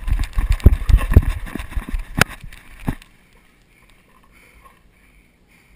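A person's running footsteps on the forest floor, heard through a body-worn camera, as heavy irregular thuds with gear knocking and one sharp knock a little past two seconds in. The running stops suddenly about three seconds in and it goes quiet.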